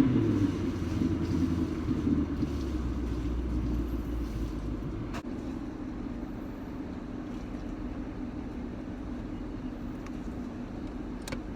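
Yamaha V8 350 outboard engine running at a steady idle, a little louder for the first few seconds before settling.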